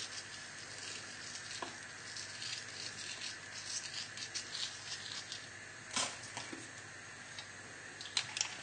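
Faint steady hiss with a few soft taps. Near the end a pepper mill starts grinding with a run of quick clicks.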